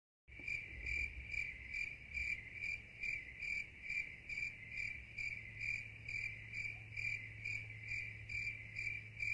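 High-pitched, steady chirping of a calling insect, pulsing about two and a half times a second over a faint low hum.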